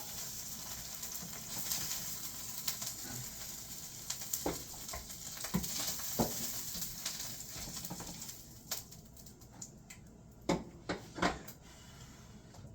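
Fat-dipped corn tortillas frying in a pan, sizzling steadily; the sizzle thins out about two-thirds of the way through, followed by a few sharp clicks.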